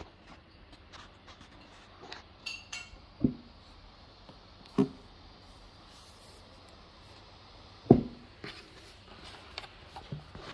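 Handling noise around a laptop: scattered light clicks and knocks, with three louder dull thumps, over a faint steady hiss.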